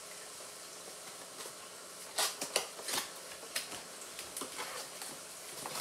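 Paper and cardboard packaging being handled while an air-pump box is unpacked: a faint steady hiss, then from about two seconds in a string of short rustles and crinkles, several a second apart.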